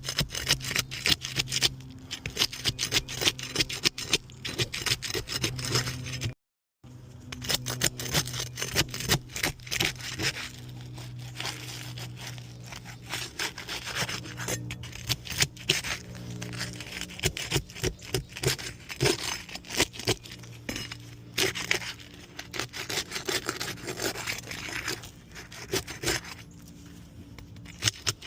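A hand tool scraping, prying and crunching at old asphalt shingles in a run of irregular scratchy strokes. The shingles are tearing rather than coming free, because their sealant is fouled with debris.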